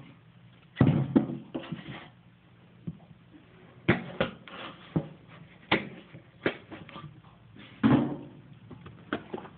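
An apple being cut up with a knife on a galvanized metal trash-can lid: a string of sharp, irregular knocks and clanks as the blade and pieces hit the metal.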